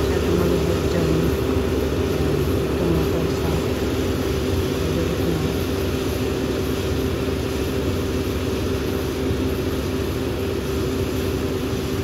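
Kubota combine harvester running steadily as it harvests rice, its engine and machinery giving a continuous drone with a level hum.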